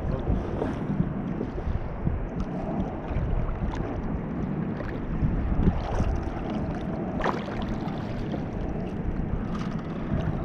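Wind rumbling on the microphone over water slapping and lapping against a kayak hull on open sea, with a few light ticks.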